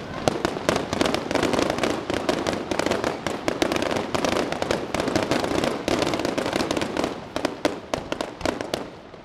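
Fireworks going off in a dense barrage of rapid crackling pops and bangs, thinning out and dying down near the end.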